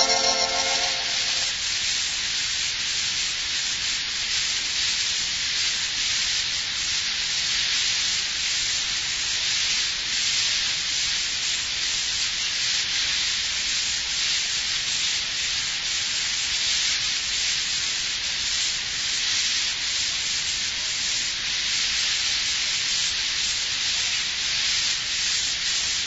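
Steady hiss with faint crackle: surface noise of a 1940s radio transcription recording, with nothing else playing. A sustained organ chord from the music bridge fades out about a second in.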